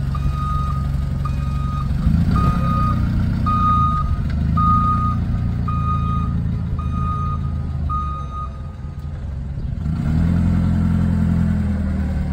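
Cat C5000 propane forklift reversing, its backup alarm beeping about one and a half times a second over the steady running of the engine. The beeps stop about two-thirds of the way through, and the engine gets louder again near the end.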